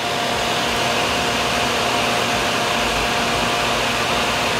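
Hair dryer running steadily: an even rush of blown air with a faint steady tone in it.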